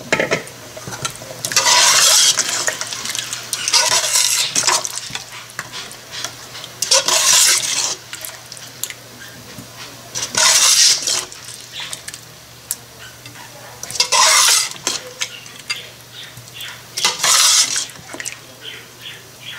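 Metal spoon stirring a pot of thin aloo gosht curry, mixing in freshly added water. About six separate swishing, sloshing strokes, with small clicks and scrapes of the spoon against the pot between them, over a faint steady low hum.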